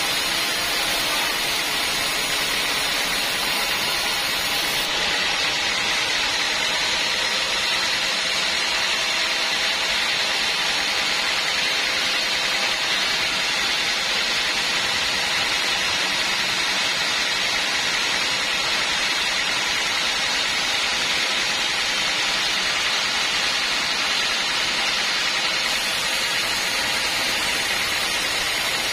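Sawmill band saw running steadily, an even, unbroken hiss.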